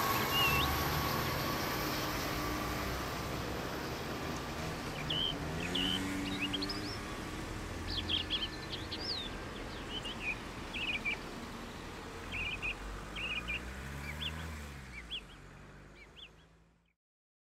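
Birds chirping in short calls over a low, steady outdoor rumble that slowly fades away, dying to silence about a second before the end.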